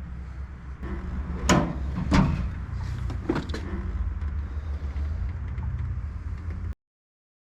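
A few sharp knocks and clatters, the two loudest close together about a second and a half in, over a steady low rumble; the sound cuts off to dead silence near the end.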